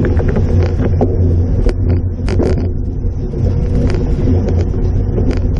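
Steady low rumble of wind and road noise on the microphone of a camera mounted on a moving road bike, with scattered irregular ticks and clicks.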